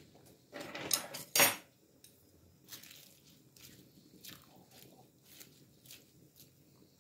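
Cooking pot being handled while spinach blanches in boiling water: two loud clatters in the first second and a half, then light, irregular clicks as wooden chopsticks push the leaves down against the metal pot.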